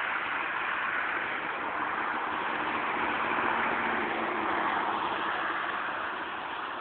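Steady hiss of distant highway traffic, with a faint low hum underneath; it swells a little midway and eases off near the end.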